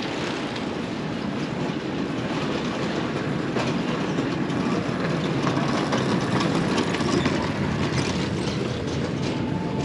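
Wheeled delivery carts rolling past on pavement, their wheels rattling and clattering over a steady rumble, loudest a little past the middle.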